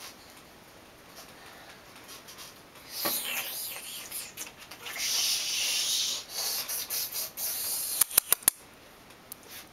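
Puppy wriggling and rolling on carpet, fur and body rubbing on the pile with a hissing rustle that is heaviest in the middle. About eight seconds in comes a quick run of four or five sharp clicks.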